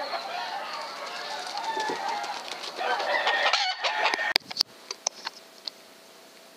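Chickens clucking, a dense chatter of overlapping calls. About three and a half seconds in it cuts off to a quiet stretch with a few sharp clicks and a faint steady hum.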